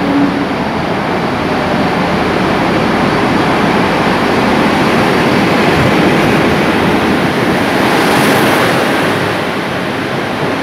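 Taiwan Railways diesel-electric locomotive R102 and its coaches rolling slowly into the station: a steady rumble of engine and wheels on rail that builds to its loudest as the locomotive passes, easing a little near the end as the coaches roll by.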